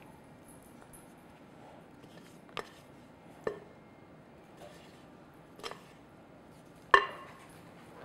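Spatula and glass mixing bowl knocking as shortbread dough is scraped out onto a stone counter: four short sharp knocks a second or two apart, the loudest about seven seconds in.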